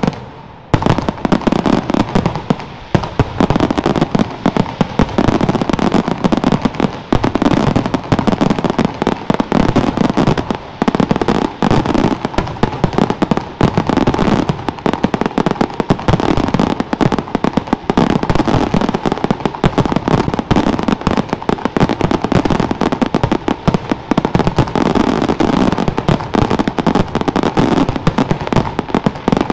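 Aerial fireworks shells bursting in a dense, continuous barrage of bangs and crackles, with no pauses between them; it opens with a single loud bang, and the barrage builds about a second later.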